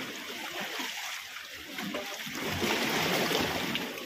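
Small sea waves washing and splashing against the rocks, swelling louder past the middle and easing off near the end.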